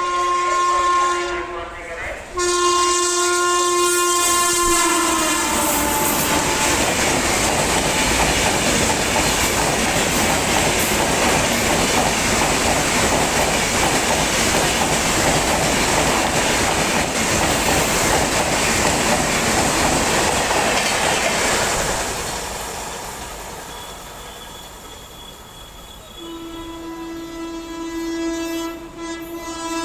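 A passing train: the locomotive's multi-tone air horn sounds, breaks off briefly, sounds again and drops in pitch as the locomotive goes by, then the coaches rush past with wheels rattling over the rail joints for about fifteen seconds before fading. Near the end another long, steady horn sounds.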